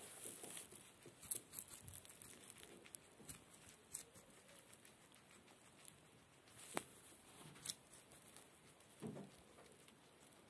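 Guinea pig eating cucumber: quiet, irregular munching and crunching, with a few sharp crisp snaps as it bites into the cucumber flesh.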